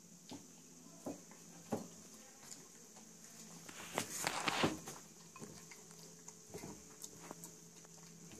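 Cat eating from a bowl: irregular wet chewing and smacking clicks, with a louder, noisier stretch about four seconds in.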